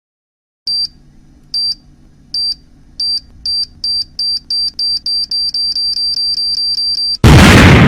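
Bomb-timer sound effect: a high electronic beep repeating faster and faster, from under one a second to about five a second, over a faint low hum. About seven seconds in it is cut off by a loud explosion that starts to die away.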